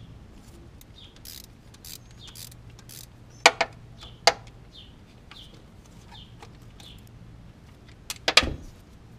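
Sharp metallic clacks and small clicks of tools and parts being handled during engine work: two clacks about three and a half and four seconds in and a louder cluster near the end, over a low steady hum.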